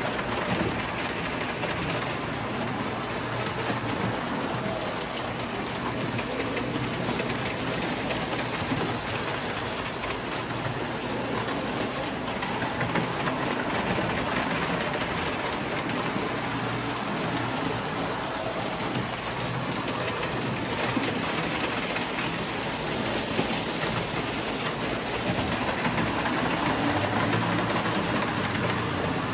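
Prewar American Flyer and Lionel Standard Gauge tinplate toy trains running on three-rail metal track: a steady rattling clatter of wheels on the rails with a low steady hum underneath.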